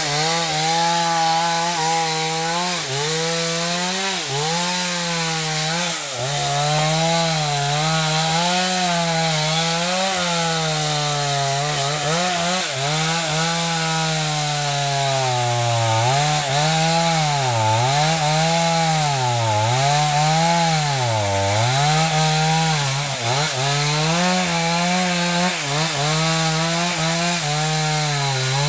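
Two-stroke chainsaw running at high revs while cutting wood. Its pitch dips and recovers over and over as the chain bites into the timber, about once a second later on.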